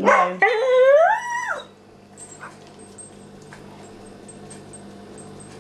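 Hungarian Vizsla puppy giving a short cry and then a longer high whine that rises and falls in pitch, lasting about a second and a half. Faint scattered clicks follow.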